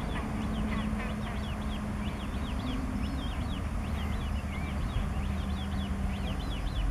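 Eurasian coot chick begging with rapid, high, thin peeping calls, several a second and overlapping, while the adult feeds it. A steady low hum and rumble runs underneath.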